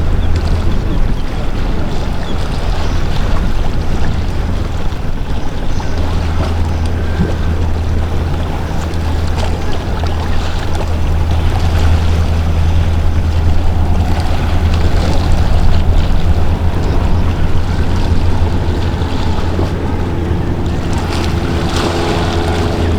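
Motor yacht's engines running with a steady low drone, over the wash of water and wind. Near the end, a higher steady hum joins in.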